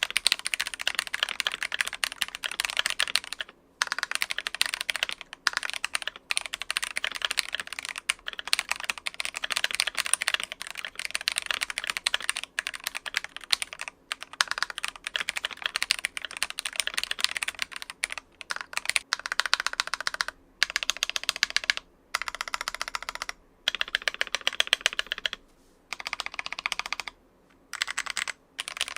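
Fast typing on a budget custom mechanical keyboard fitted with JWICK Black linear switches and Taihao Cubic-profile keycaps. The keys clack in dense runs, broken by brief pauses about every two to six seconds.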